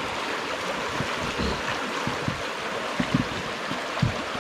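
River water rushing steadily around a drifting raft, with a few short, low thumps.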